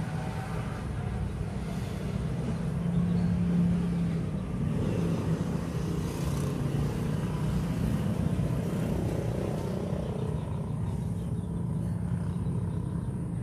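A steady low engine rumble, a little louder about three to four seconds in.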